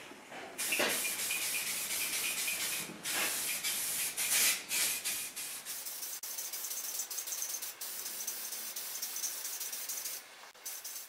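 Paint being sprayed: a steady spray hiss in several long bursts with short pauses, stopping near the end after one last short burst.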